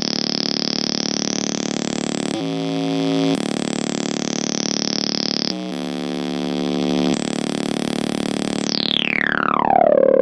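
Electronic synthesizer noise music: buzzy sustained tones that switch abruptly to new ones several times, then a steep downward pitch sweep near the end.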